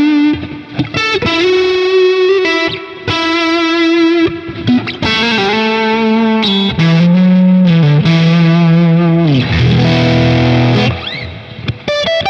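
Electric guitar played through a Boss Katana 100 amplifier with a long plate reverb of about five seconds: held single lead notes with bends and slides. After about nine seconds the notes stop and the reverb tail rings on, before a new note comes in near the end.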